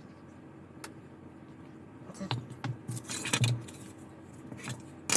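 Small hard clicks and knocks of hobby tools and plastic model parts being handled on a workbench: a single click about a second in, a cluster of clicks and dull knocks in the middle, and two sharp clicks near the end, over a faint steady hum.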